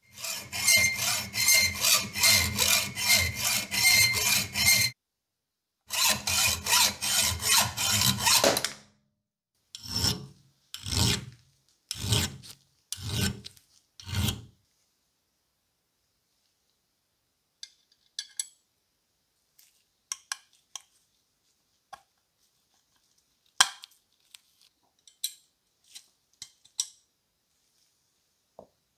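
A short steel pin clamped in a bench vise is worked with a hand tool in quick back-and-forth strokes, in two long runs and then five slower single strokes about a second apart. Scattered light clicks and taps follow near the end.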